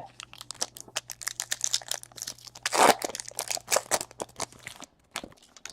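Foil wrapper of a trading-card pack being torn open and crinkled: a dense, irregular run of crackles and rips, loudest about three seconds in, thinning to a few scattered crackles near the end.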